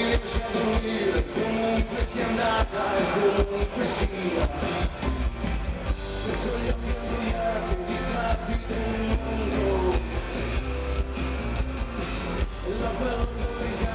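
Rock music with guitar and a drum kit, the drums hitting steadily throughout.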